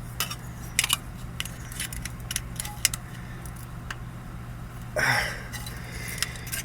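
Cheap metal hand tools clinking and clicking against each other as they are handled, in sparse separate clinks, with a brief rustling scrape about five seconds in over a low steady hum.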